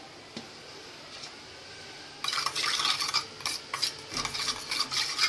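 A metal spoon stirring a liquid sauce marinade in a stainless steel bowl: quick scraping and clinking against the bowl, starting about two seconds in.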